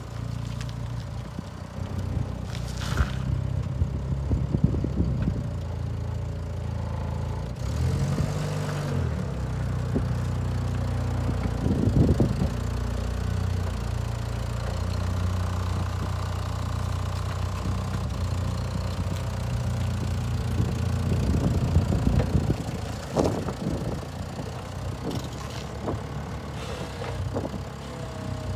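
Datsun FG105 forklift's gas-fuelled engine running as the truck drives and turns, mostly at a steady low engine note. The engine speeds up and settles once about eight seconds in, and short knocks and clatters come now and then.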